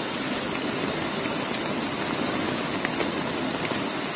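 Muddy floodwater rushing across pavement under heavy rain: a steady, even rushing hiss with a few faint ticks of drops.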